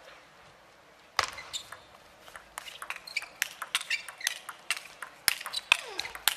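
Table tennis rally: the ball clicking sharply off the paddles and the table, the first hit about a second in, then a quickening run of clicks. Short squeaks from the players' shoes on the court floor come in among the hits.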